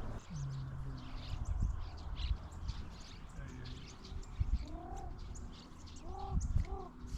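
Doves cooing, with several low arched coos in quick succession in the second half, over the steady high chirping of small birds.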